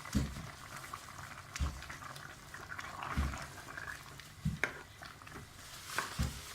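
Pot of soup simmering, with low plops about every second and a half as bubbles burst in the thick liquid, and a couple of sharp clicks near the end.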